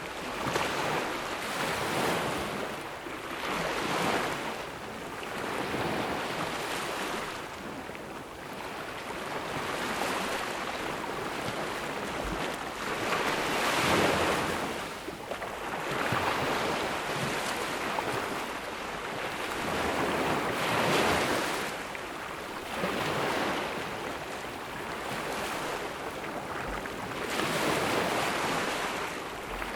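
Ocean waves breaking on a beach: a continuous wash of surf that swells and falls back every few seconds, with a few louder breakers.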